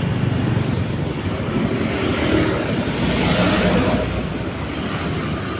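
Steady, loud rushing noise of road traffic, cutting in suddenly at the start.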